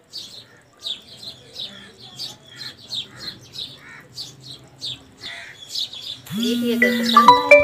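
Small birds chirping in short, high calls repeated two or three times a second. About six seconds in, louder music comes in: a low held note under bright, ringing tones.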